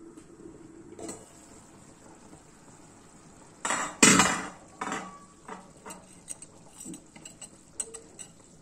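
Stainless steel pot lid lifted off and set down with a loud clatter of metal about four seconds in, followed by several lighter clinks.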